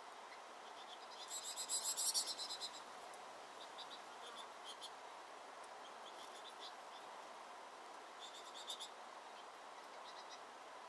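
Small finches at a seed feeder, American goldfinches and pine siskins, calling in quick high chirps and trills. The loudest bursts come a second or two in and again near the end, with scattered chirps between, over a faint steady background noise.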